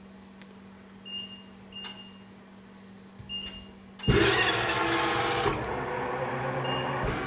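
ProtoTrak Sport B3 CNC mill starting a bolt-circle peck-drilling program: a few short high beeps over a low steady hum, then about four seconds in the spindle and axis servo motors start up suddenly and run loudly and steadily.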